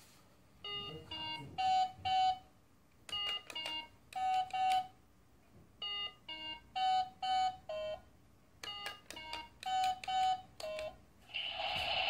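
Handheld Simon-style memory game toy beeping: short electronic tones of several different pitches, one for each coloured button as it lights up and is pressed, in runs of four or five with short pauses between them.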